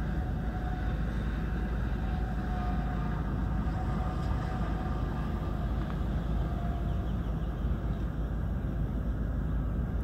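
A stationary car's engine idling, a steady low rumble.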